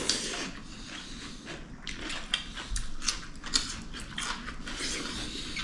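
Close-miked eating sounds: a person chewing food, with irregular small wet clicks and smacks.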